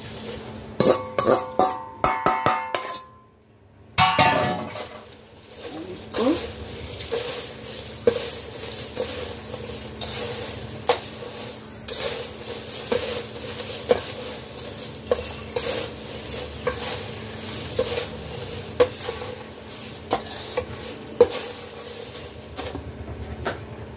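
Crisp fried poha and peanuts tipped from a metal bowl onto a steel plate, with clinks and ringing clangs of metal on metal in the first few seconds. Then the crisp mix rustles as it is tossed with a slotted steel spoon, which knocks and scrapes on the plate about once or twice a second.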